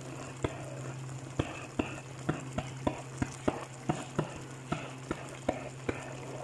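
Thick tomato sauce of a chicken stew simmering in a wok, bubbles bursting with sharp irregular pops about twice a second over a steady low hum.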